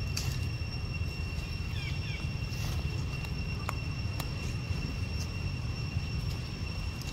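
Steady insect buzz holding one high pitch throughout, over a constant low rumble. A few faint short chirps come about two seconds in, and a couple of light clicks follow.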